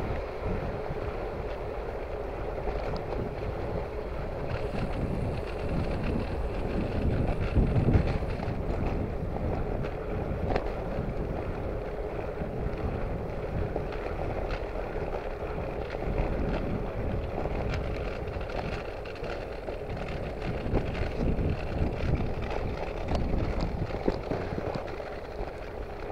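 Wind buffeting the microphone of a moving bicycle, gusting unevenly over a steady rush of tyre and road noise.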